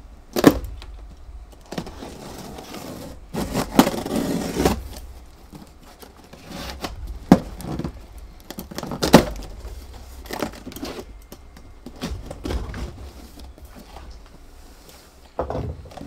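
Plastic packing straps on a long cardboard shipping box being cut, with a few sharp snaps and clicks, and cardboard scraping and rustling as the box's flaps are pulled open.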